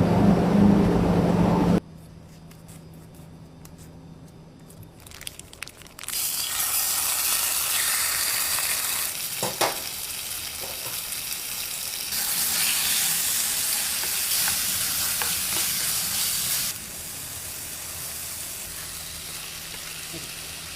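Loud machinery hum that cuts off about two seconds in, then a few faint clicks. From about six seconds on, a steady sizzling hiss whose level jumps up and down at a couple of points.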